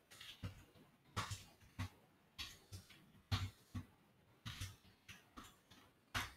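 Computer keyboard keys being typed: a run of short, irregular clicks, two or three a second, some close together in pairs.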